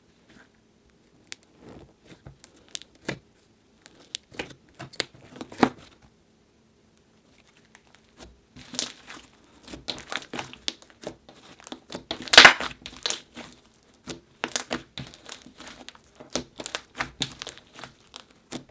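Rainbow slime squished and kneaded by hand, with irregular crackling, clicking and squelching. There is a short lull about six seconds in, and the loudest crackle comes about twelve seconds in.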